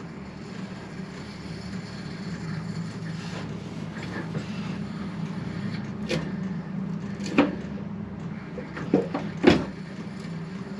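Steady low hum with four sharp metallic knocks in the second half, the last the loudest, as tools and metal parts are handled while a motorcycle's rear wheel is taken off.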